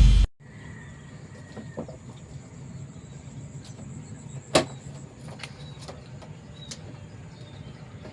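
Loud intro music cuts off abruptly, leaving quiet ambience: a steady low hum and a faint high steady whine, with a few sharp clicks, the loudest about four and a half seconds in.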